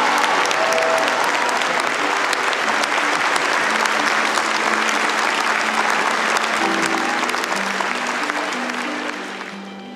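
Crowd applauding steadily over slow music with long held notes; the applause dies away near the end, leaving the music.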